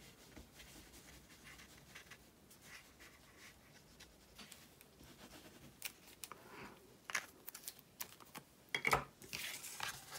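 Liquid-glue bottle tip rubbing along cardstock with a soft, faint scratching, then the card being handled and folded, with a few sharp clicks and a louder knock about nine seconds in, followed by a rustle.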